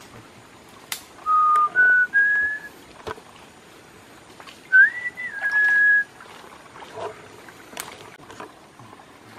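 A person whistling a few short notes. Three held notes step up in pitch, then after a pause one note rises and settles back a little lower. There are a few light clicks in between.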